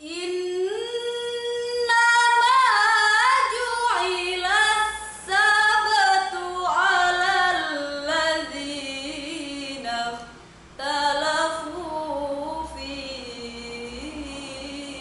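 A young woman's solo voice reciting the Qur'an in the melodic tilawah style, with long held and ornamented notes that glide between pitches. She breaks for a short breath a little after ten seconds in, then carries on at a lower pitch.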